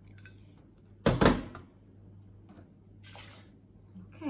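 Water poured from a small metal measuring cup into a blender jar packed with pomegranate seeds. A loud splash comes about a second in, then a softer, shorter pour near three seconds.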